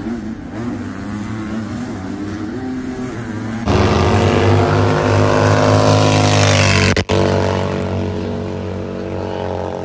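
Motorcycle engines: first an engine revving up and down, then from about four seconds in a much louder engine held at high revs, its pitch slowly falling, with a brief break near seven seconds.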